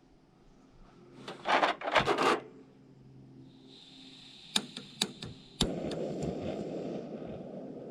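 Handling and scraping, then a gas canister stove being lit: a hiss of gas from the opened valve, about five sharp igniter clicks, and on the last click the burner catches and runs with a steady low rushing flame.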